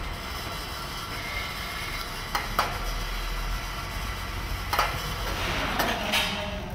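Building-site background noise: a steady hiss and hum, broken by a few sharp metallic clanks, two about two and a half seconds in and another nearly five seconds in.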